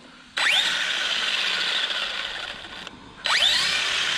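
RC stunt truck's brushless motor revved with the truck held off the ground and its wheels spinning freely: a rising whine that holds for about two and a half seconds, cuts off, then rises again near the end. It is a drivetrain check after a crash, which shows only three wheels driving.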